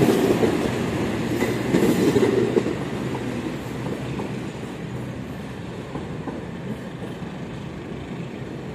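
Passenger train coaches rolling along the rails with wheel clatter. The sound is loud for the first couple of seconds, then fades to a lower rumble as the last coach moves away.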